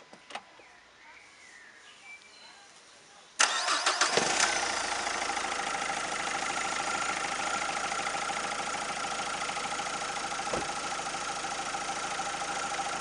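A car's diesel engine is started after an oil and filter change. The starter cranks for under a second before the engine catches with a loud burst about three and a half seconds in. It then settles into a steady idle.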